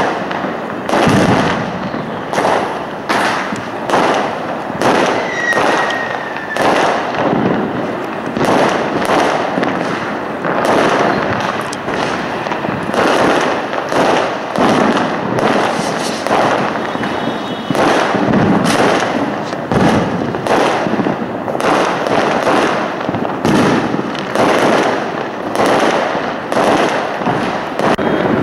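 Fireworks and firecrackers going off all around in a continuous barrage of dense, overlapping bangs and crackles with no pause. A brief whistle comes through about five seconds in.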